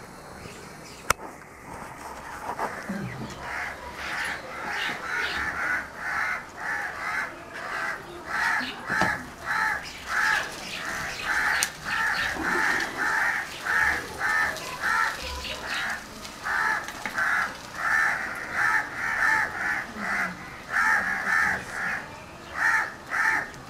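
Crows cawing over and over, about two short calls a second, starting a few seconds in.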